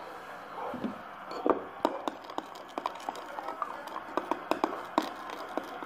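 Spoon clicking and scraping against a bowl while paint is stirred into slime mixture: an uneven run of small sharp clicks, several a second, starting about a second and a half in.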